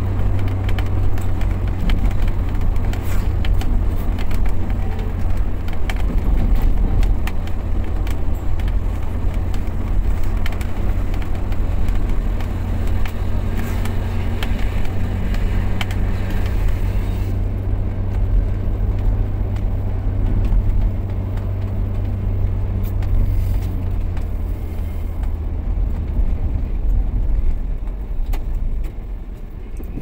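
Steady low rumble of a moving car's engine and tyres on asphalt, heard from inside the cabin, with scattered light ticks and rattles through the first half and a slight easing near the end.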